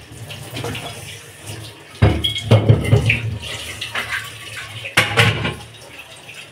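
Chicken pieces frying in hot oil, sizzling steadily, with louder surges about two seconds in and again near five seconds.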